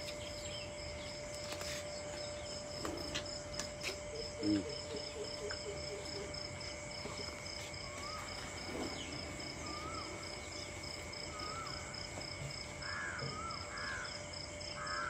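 Steel milk buckets being handled on a weighing scale as milk is poured from one into the other: a few light knocks early on and one dull thump about four and a half seconds in. Under them runs a steady, rapidly pulsing insect drone, and short bird chirps repeat through the second half.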